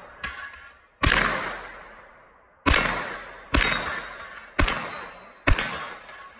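CZ Scorpion carbine fired semi-automatically at range targets. Five loud single shots come at uneven intervals about a second apart, with a smaller crack just before them, and each shot trails off in a long echo.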